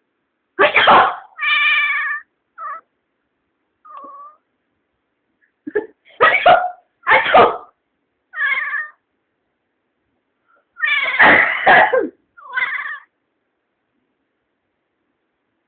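A person sneezes several times, and each sneeze is answered by the cat's short meow.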